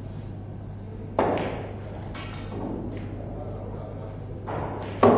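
A pool shot: a sharp cue-tip strike on the cue ball about a second in, then lighter clicks of balls meeting. A louder sharp knock with a short ring comes near the end, all over a steady low hum.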